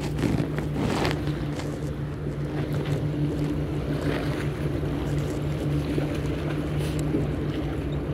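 Steady, unchanging low drone of a boat engine over the wash of water. A few rustles come in the first second.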